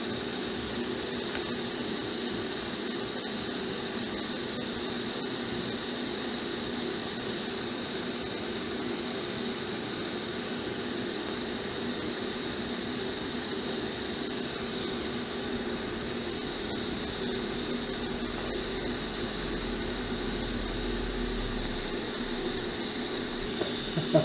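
Steady electric buzz and hiss of a TIG welding arc running on a steel motorcycle frame, getting a little louder just before the end.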